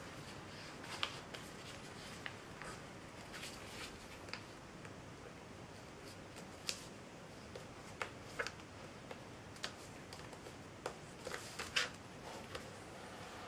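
A sheet of printer paper being folded by hand on a tabletop: irregular short crinkles and taps as the creases are pressed and smoothed down, over a faint steady hiss.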